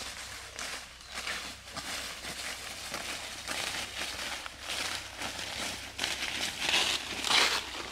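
Footsteps crunching through dry fallen leaves and undergrowth, an irregular rustling crackle that grows louder near the end as the walkers come close.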